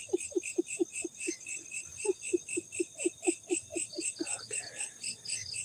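Night chorus: crickets or other insects pulsing steadily, with an animal call of short falling notes repeated about four times a second that breaks off briefly about a second and a half in.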